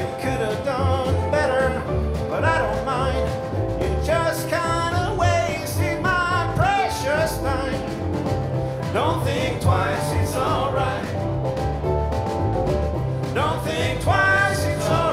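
Live acoustic string band playing: strummed acoustic guitars, mandolin, upright bass and a snare drum keeping a steady beat, with a lead melody bending in pitch over the top.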